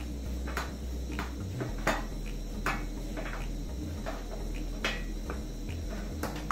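Wooden cooking stick working thick ugali in an aluminium pot, each stroke a short knock or scrape against the pot, about one every half to three-quarters of a second over a low steady hum.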